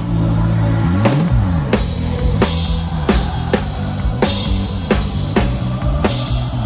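Live pop band music led by a drum kit: kick and snare strokes about two a second, with a cymbal wash every couple of seconds. Underneath are sustained low bass notes that slide up and down about a second in.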